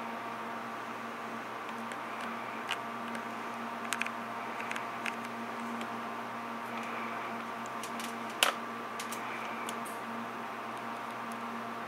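Steady hum and hiss of room tone, with a few short, sharp clicks scattered through it; the loudest click comes about eight and a half seconds in.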